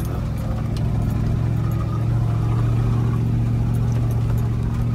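Toyota Land Cruiser 100's V8 engine running steadily at low speed, heard from inside the cabin as an even low hum. A few faint clicks and knocks from the ride over a rocky track.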